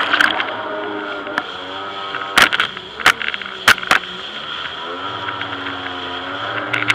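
Jet ski engine running, its pitch falling as the throttle eases and rising again from about five seconds in, over a rush of water and wind. A few sharp knocks come between two and four seconds in.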